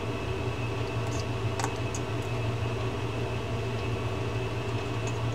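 Steady background hum with a faint high whine. About one to two seconds in come a few faint light clicks of a small metal pin and spring being worked into an opened fishing reel.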